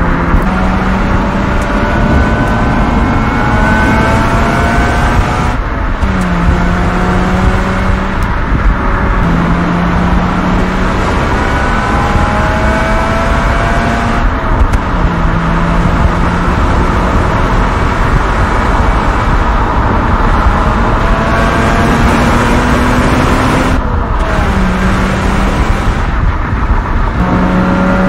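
Mazda RX-8's twin-rotor Renesis rotary engine pulling hard at high revs under acceleration. Its pitch climbs in long stretches and drops back briefly several times.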